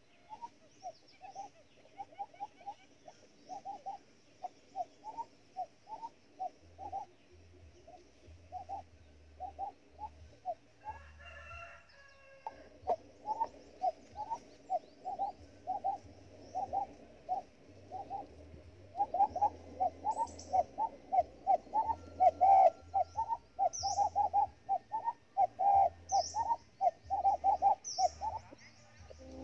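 Quail calling in a long run of short low notes, about three or four a second, with a brief break partway and growing louder in the second half. A small bird chirps high over it every second or so near the end.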